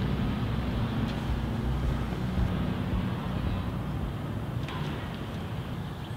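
Car engine idling steadily, a low even hum, with a faint click about three quarters of the way through.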